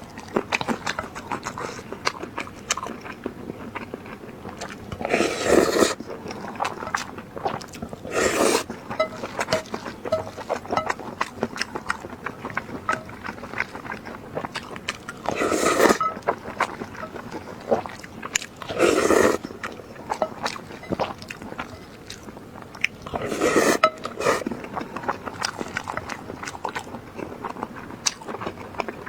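Close-miked eating: steady chewing with many small wet mouth clicks, broken about six times by louder bursts of half a second to a second.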